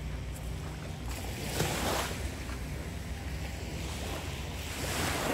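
Small waves breaking and washing up on a sandy shore, swelling twice, about a second and a half in and again near the end, over a low wind rumble on the microphone.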